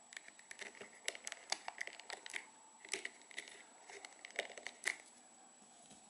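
A toothpick prying at the plastic seam around a button on an LG Magic Motion TV remote: faint, irregular small plastic clicks and scratches that stop about five seconds in.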